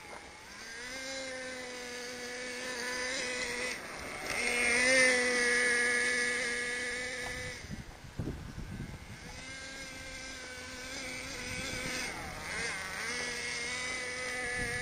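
Nitro two-stroke glow engine of an HPI MT2 radio-controlled stadium truck running and revving as the truck drives over rough ground, its pitch rising and falling with the throttle. It is loudest about five seconds in and drops away for a moment about eight seconds in.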